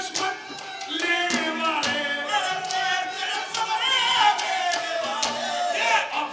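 A man singing a Haryanvi ragni, with drawn-out melodic notes that bend in pitch, over regular percussion strokes keeping the beat.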